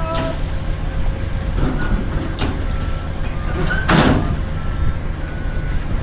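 Low, steady rumble of a VIA Rail passenger train standing idling at the platform, with a few sharp knocks and clacks, the loudest about four seconds in.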